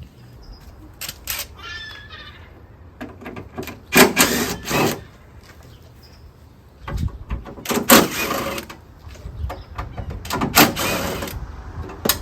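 A power driver running in three short bursts of about a second each, spinning out the 10 mm bolts that hold the stock air box in the truck's engine bay.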